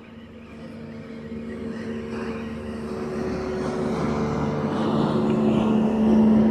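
Motorboat engine running steadily as the boat draws nearer, growing louder throughout.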